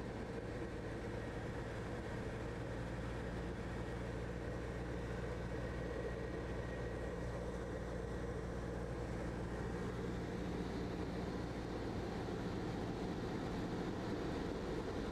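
Socata TB-9 Tampico light aircraft's four-cylinder piston engine and propeller droning steadily in cruise, heard inside the cabin.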